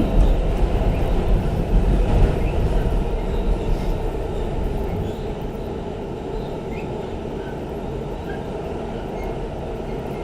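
R46 subway train running on the tracks, heard from inside the car: a steady rumble and rattle of wheels and car body. It is louder for the first few seconds, then eases to a lower, even level.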